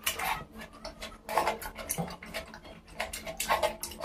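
Close-up chewing and lip-smacking of a mouthful of rice and mutton curry eaten by hand: a string of irregular short clicks and smacks.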